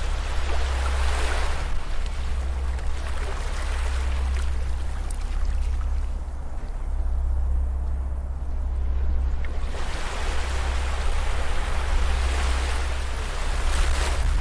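Ocean surf washing onto a beach: the wash swells near the start, ebbs away in the middle, then builds again as the next wave comes in, over a steady low rumble.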